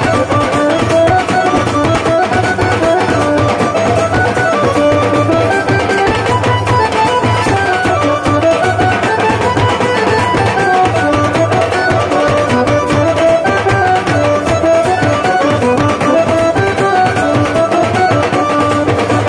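Live folk band music: drums beaten with sticks keep a steady beat while an instrumental melody of held, stepping notes plays over it.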